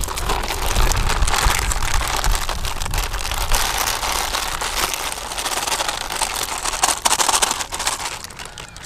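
Refined wheat flour (maida) pouring in a stream from a plastic packet onto a large steel platter: a steady hiss that thins out near the end as the pour finishes.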